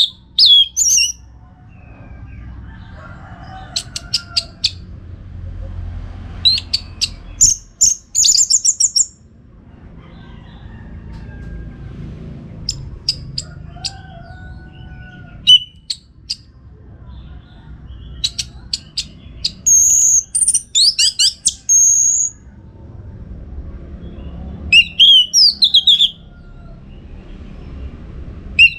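Orange-headed thrush singing in full voice: short, fast phrases of high whistles, trills and sharp clicks, a pause of a few seconds between them, over a low background rumble.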